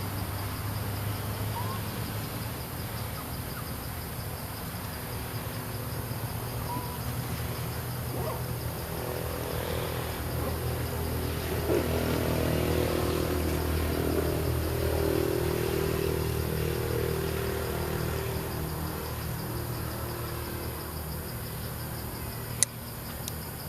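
A motor vehicle's engine running, growing louder in the middle and then fading, over a steady high insect chirr. A single sharp click comes near the end.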